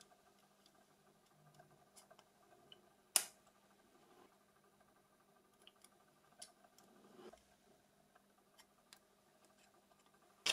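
Faint, scattered clicks and taps of small parts of a Nokia 6300 mobile phone being handled and fitted together by hand, with one sharper click about three seconds in, over a faint steady hum.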